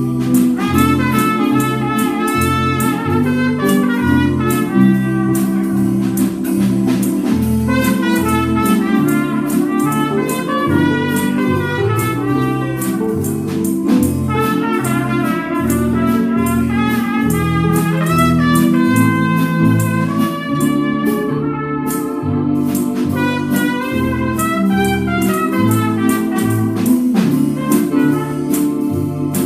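Small dance band playing a swing tune, a trumpet carrying the melody over the reeds, with a bass line that steps from note to note on the beat.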